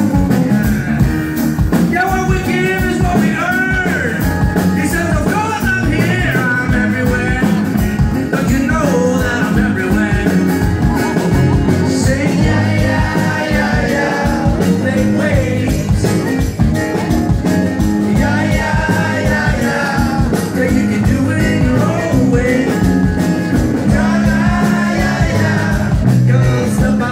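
Live band playing a rock song: acoustic guitar and electric bass under a man's lead vocal.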